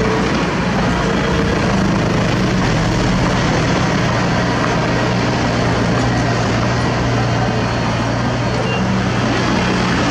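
Diesel engine of a small Komatsu LP crawler bulldozer running steadily under load, with a deep, even hum, mixed with the running engine of a tipper dump truck.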